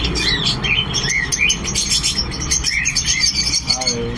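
Many caged pet birds chirping together: repeated short rising-and-falling chirps over a dense, high twittering.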